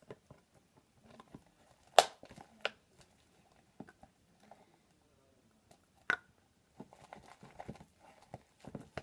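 Fluffy shaving-foam slime being stirred in a plastic party cup with a plastic stir stick: faint scraping and crinkling handling noise, broken by a few sharp plastic clicks and taps, the loudest about two seconds in and another about six seconds in.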